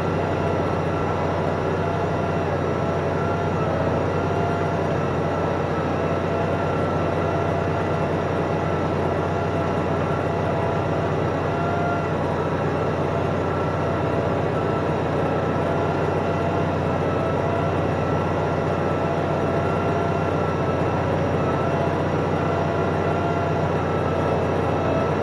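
Tractor diesel engine running steadily under load while pulling a reversible plough through the soil, a continuous low drone with a steady whine on top.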